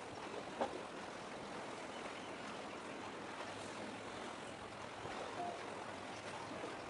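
Steady wash of sea waves and wind along a rocky breakwater, with one short sharp click about half a second in.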